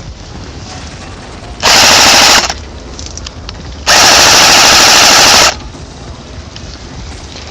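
Airsoft G36 replica rifle with a drum magazine firing on full auto, recorded right on the gun: a short burst about two seconds in, then a longer burst of about a second and a half. Both are rapid rattling strings of shots, loud enough to overload the microphone.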